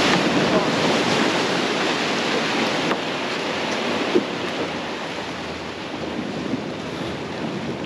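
Rush of wind on the microphone and churning water from the wake of a center-console boat running at speed behind its outboard, easing off a little about three seconds in.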